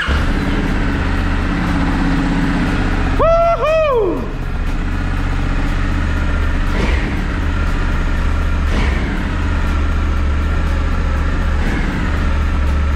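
2020 Honda Africa Twin CRF1100's parallel-twin engine idling steadily just after starting, running for the first time since its crash rebuild. About three seconds in, a short two-note whoop rises and then falls over it.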